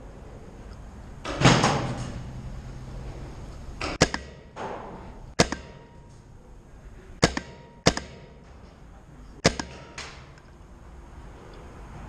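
Scattered single shots from paintball markers, sharp pops spaced irregularly a second or more apart, about eight in all, each trailing an echo in the large concrete building. The loudest, fuller blast comes about a second and a half in.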